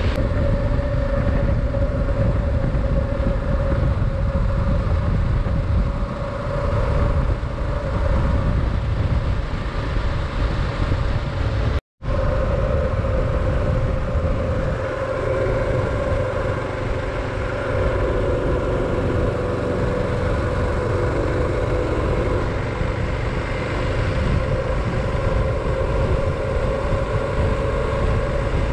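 Kawasaki KLR 650 single-cylinder motorcycle engine cruising steadily at road speed, with heavy wind buffeting on the helmet-mounted microphone as a dense low rumble under a steady drone. The sound cuts out for an instant about twelve seconds in.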